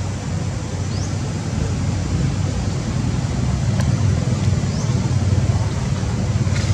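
Steady low outdoor rumble, with a few faint short high chirps that rise in pitch, about a second in and again near five seconds.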